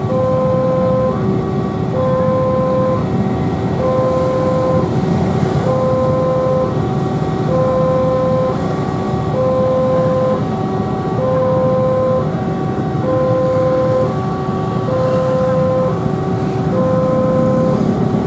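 Railway level-crossing warning alarm sounding continuously, an electronic two-tone signal alternating high and low about once a second, over the low rumble of road traffic. The alarm signals that the crossing is closed for an approaching train.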